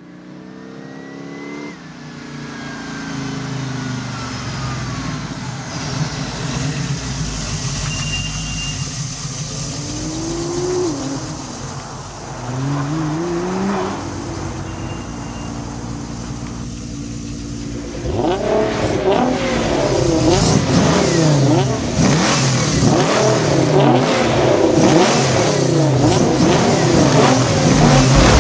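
Car engines revving and accelerating: a few separate revs climbing in pitch in the first half, then several engines revving up and down over one another, louder, from about two-thirds through.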